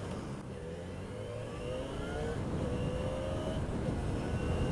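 Motorcycle engine accelerating: its note climbs, drops back, then climbs again several times as it changes up through the gears. Wind rumble on the rider's camera microphone grows louder with speed.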